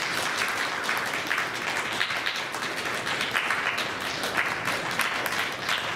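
Audience applauding, a dense steady clapping of many hands.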